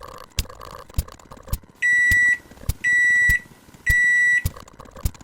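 Microwave oven sound effect: a low hum with sharp clicks about twice a second, then three long, steady, high beeps about a second apart, the signal that the heating is done.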